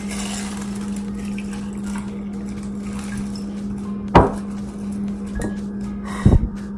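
Glass vases set down on a kitchen counter: one clunk about four seconds in, then a quick double knock near the end, over a steady low hum.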